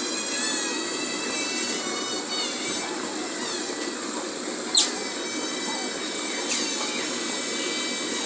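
Asian small-clawed otter giving short, high, falling chirps: one sharp loud chirp about halfway through and a fainter one a couple of seconds later, over a steady background with a high-pitched whine.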